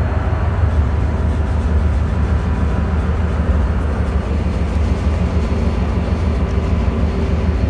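Forchbahn S18 light-rail train running along its track, heard from the driver's cab: a steady low rumble of wheels on rail and running gear, with a faint hum over it.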